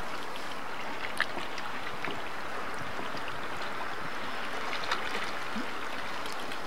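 Rain falling on the lake around a canoe: a steady hiss with a few faint ticks of drops.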